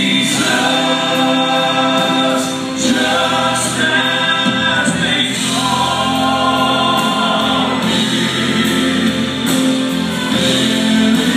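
Male Southern gospel quartet singing in close harmony, holding long chords, with a live band of piano and electric guitars behind them.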